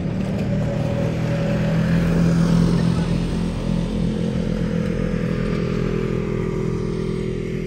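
Engines of a convoy of side-by-side off-road UTVs driving past, loudest about two and a half seconds in.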